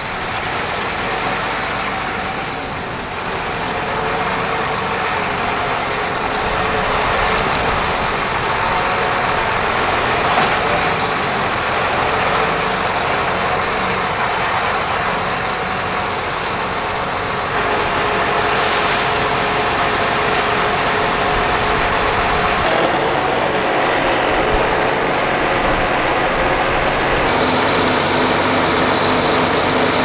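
A large John Deere tractor's engine runs steadily close by as it pulls a grain cart alongside grain wagons. The sound shifts abruptly several times.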